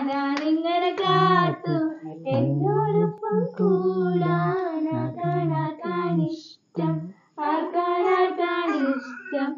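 People singing a song together: a higher voice carries the tune and a lower voice joins in on some lines, with long held notes.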